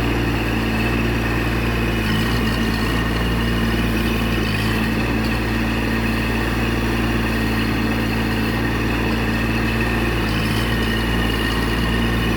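Mini excavator engine running steadily at an even speed, with no revving.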